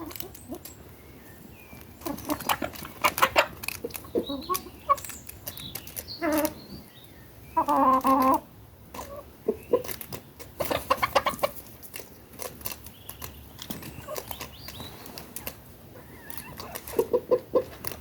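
Chickens clucking as they feed on bread, with bursts of short quick clucks and one louder call lasting about half a second, about eight seconds in.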